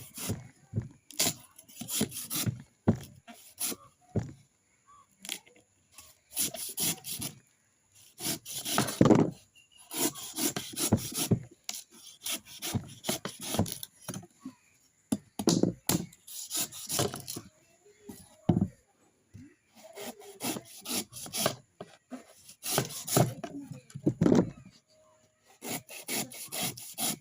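A coconut being scraped by hand: repeated rough scraping strokes in irregular runs, with short pauses between them.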